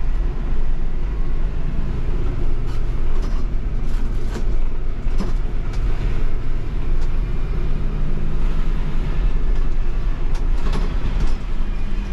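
Cab noise of an old refuse collection lorry on the move: a steady low engine rumble, with scattered clicks and rattles from the cab.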